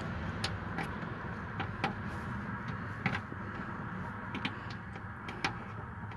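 Scattered sharp clicks and light knocks of plastic trim clips and the side skirt being handled and pushed into place, over a steady low background hum.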